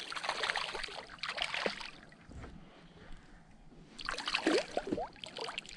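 Water splashing and trickling around a kayak, with many small clicks and knocks. These are busiest in the first two seconds and again about four to five seconds in.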